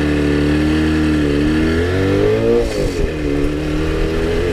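Jawa 350 two-stroke twin engine running under throttle on the move. Its pitch climbs about two seconds in, drops sharply near three seconds, then holds steady. The engine is running lean, per the owner, which leaves it short of power.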